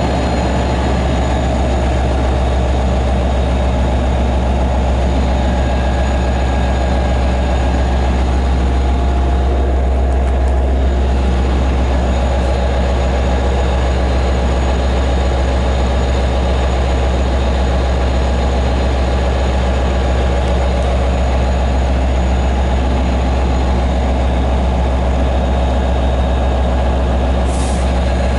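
DM30AC diesel locomotive standing and idling, its prime mover giving a loud, steady low drone with mechanical clatter over it. A short hiss of air near the end.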